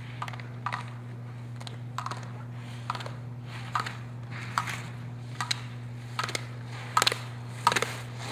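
A slalom skier's turns through the gates: a short sharp sound at each turn, about one every 0.8 seconds, growing louder as she approaches. A steady low hum runs underneath.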